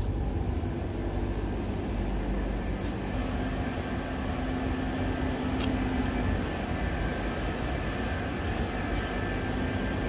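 Steady low drone of outdoor air-conditioning plant running, with a faint steady hum tone in the middle and a couple of faint clicks.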